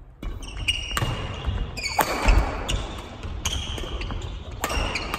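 Badminton doubles rally on a wooden sports-hall floor: sharp racket hits on the shuttlecock, loudest about two seconds in and again near the end, with shoes squeaking briefly and feet thudding as the players move.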